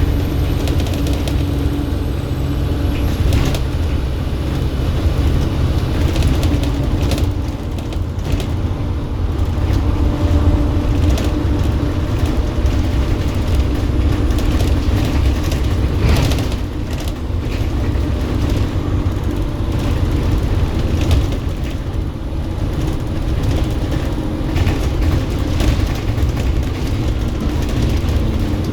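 Volvo B7RLE bus's six-cylinder turbodiesel engine running steadily under way, a hard-worked, thrashy drone with a high turbo whistle, and scattered knocks and rattles.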